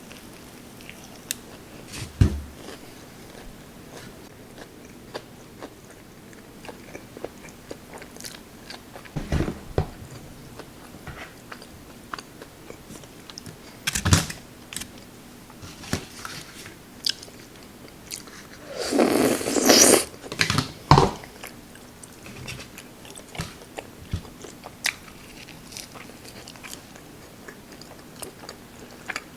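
Close-miked eating: biting, chewing and crunching in irregular bursts, with scattered sharp clicks and a longer, louder noisy stretch a little past the middle.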